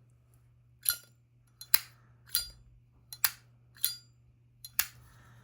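Zippo lighter lid flicked open and snapped shut repeatedly: about six sharp metallic clicks, each with a brief bright ring.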